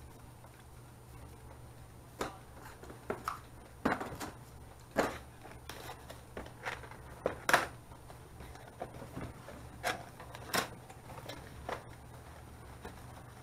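Cardboard packaging being handled: irregular clicks, taps and scrapes as a small box's flaps are opened and its contents pulled out, over a steady low hum.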